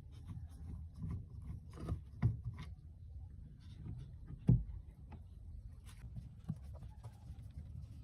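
Light clicks, taps and scrapes from handling small parts and tools on a work surface, with one louder knock about halfway through.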